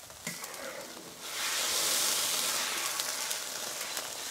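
Braising liquid sizzling and hissing in a hot wok as bok choy is blanched in it and lifted out; a louder steamy hiss comes in suddenly about a second in and holds.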